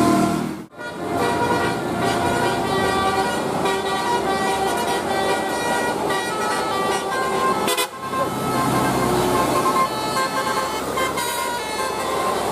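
Indonesian bus 'basuri' telolet horns playing a tune of steady, shifting multi-tone notes. The sound breaks off abruptly twice, about a second in and near eight seconds, where one clip gives way to the next.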